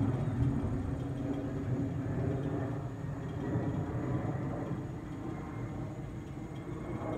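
Jet airliner flying high overhead: a steady, low jet-engine rumble that fades slightly toward the end.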